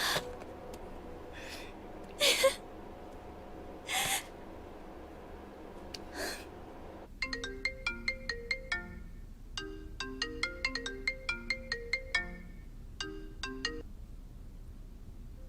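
Soft background music with a few short sharp breaths. About seven seconds in, a phone ringtone starts: a quick melody of short plinking notes, played three times with brief gaps between.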